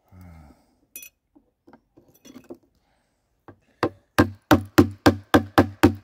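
Oyster-shucking tool being jabbed into the back end of an oyster shell on a wooden table to force it open: a few light clicks, then from about four seconds in a fast, even run of loud knocks, about four a second.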